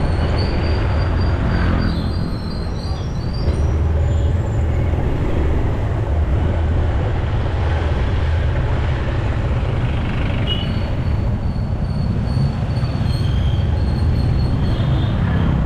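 A vehicle in motion, with a steady low rumble of engine, road and wind on the camera microphone. Faint high-pitched squeals come in near the start and again from about ten seconds in.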